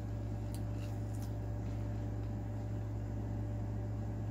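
A steady low hum with a faint even hiss, and a few faint small clicks about half a second and a second in.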